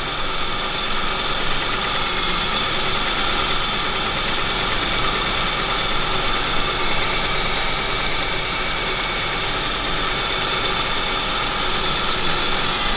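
Ford C-Max engine idling with a steady high-pitched whistle over it, the sign of the engine drawing in false air through a leak in the intake.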